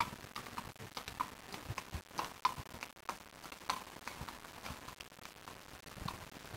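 A shod horse's hooves clip-clopping on a paved street at a walk as it pulls a cart: sharp, briefly ringing clops, irregular, a couple a second.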